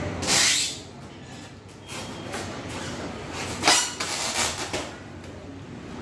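Handling noise from a newly unboxed double-door refrigerator being gripped and shifted on its packing base: rustling and scraping of its plastic film and packaging, with one sharp knock about two thirds of the way through.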